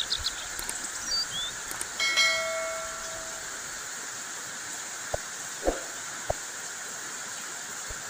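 Heavy rain falling steadily on the leaves of a mango tree, with a few short bird chirps in the first second. About two seconds in comes a bell-like chime that fades over a second or so, and later a few low thuds, like heavy drops striking close by.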